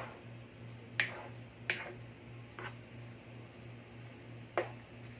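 A plastic spoon stirring thick creamy carbonara pasta in a pan: several short, sharp clicks at uneven intervals where the spoon knocks the pan and moves through the sauce. A steady low hum sits underneath.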